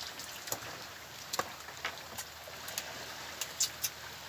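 Nylon gill net and its plastic floats being handled in a boat: scattered sharp clicks and ticks at irregular spacing over a steady hiss.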